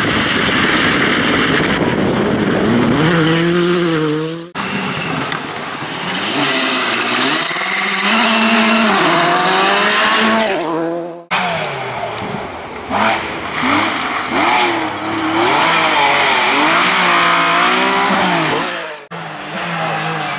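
Rally cars passing at speed one after another, each engine revving up and dropping back through gear changes. The sound breaks off abruptly between passes three times.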